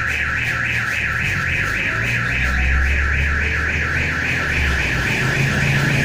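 Electronic alarm tone warbling rapidly up and down, about four to five sweeps a second, without a break. Under it, a low engine rumble from road traffic swells in the middle.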